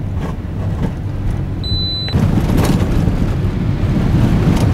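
Car road and engine noise heard from inside the cabin, with a short high beep a little before two seconds in. After about two seconds the rumble turns louder and rougher.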